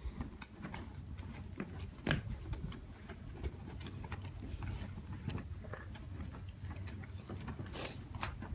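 Quiet outdoor stillness with wind rumbling on the microphone, the soft rustle and clicks of a flag's cloth being folded, with a sharper rustle about two seconds in and another near the end, and a dove cooing in the background.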